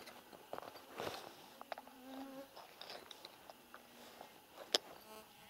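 An insect buzzing briefly near the microphone about two seconds in, over faint rustles and clicks; a single sharp click near the end.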